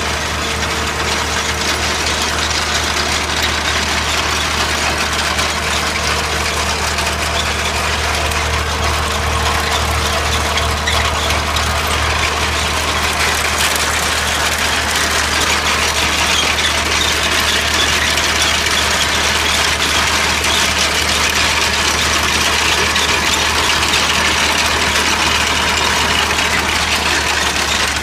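Farm tractor engine running steadily while pulling a chain-elevator potato digger, with the digger's rod chain rattling continuously as it lifts soil and potatoes. The rattle grows a little louder about halfway through.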